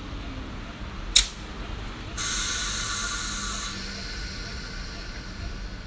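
A sharp click about a second in, then a loud hiss of compressed air venting from a Class 318 electric multiple unit standing at the platform. The hiss starts about two seconds in and fades away over the next two seconds or so.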